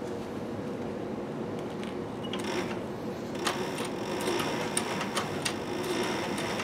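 Heavy-duty leather sewing machine stitching through a thick leather holster. The motor hums steadily, and from about a third of the way in irregular clicks of needle strokes come more and more often.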